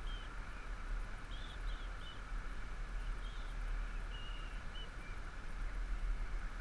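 Steady outdoor hiss over a low wind rumble on the microphone, with a few short, high bird chirps scattered through.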